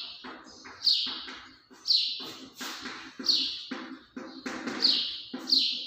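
Chalk writing on a blackboard: a string of short, high squeaks and scratchy strokes, roughly one every second.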